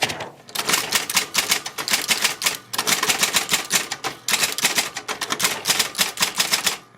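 Royal 1200 electric typewriter being typed on: its type bars strike in quick runs of several clicks a second, with short pauses between runs.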